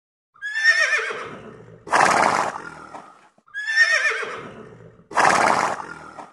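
Horse neighing, the same call heard twice: a high, wavering whinny that fades, then a loud breathy rush of air.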